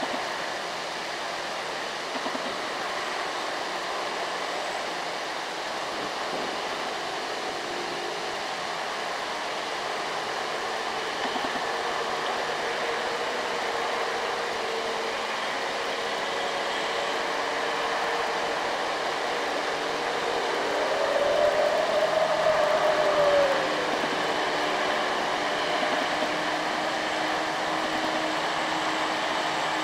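Mitsubishi Fuso Canter dump truck's diesel engine pulling a full load of rock up a long incline, heard from a distance with steady road noise. About two-thirds of the way through, a pitched engine note rises and falls over a couple of seconds, the loudest moment.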